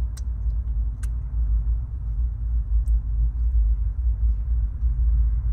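Steady low rumble of a car idling, heard from inside its cabin, with a few faint mouth clicks from eating.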